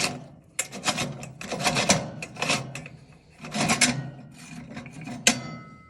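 Metal parts of an antique wick heater being handled: rattling and scraping in several bursts, ending with a sharp metallic clink that rings briefly.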